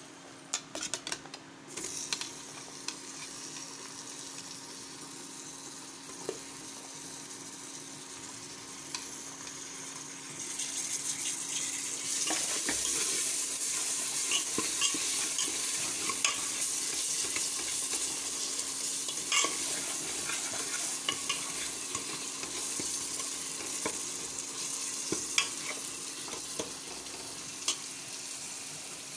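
Masala frying and sizzling in an open pressure cooker, with a steel spoon stirring and clinking against the pot now and then. The sizzle grows louder about a third of the way in.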